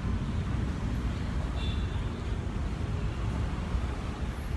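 Steady low rumble of city traffic, mixed with wind buffeting the phone's microphone.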